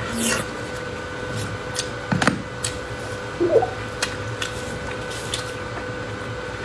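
Close-miked eating sounds: chewing with scattered wet clicks and smacks, over a faint steady electrical hum.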